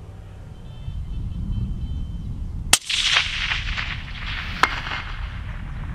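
A single shot from a suppressed .260 Remington bolt-action rifle about three seconds in: a sharp crack followed by a long rolling echo. About two seconds later comes one short, sharp tick, the distant steel gong at 452 m being hit.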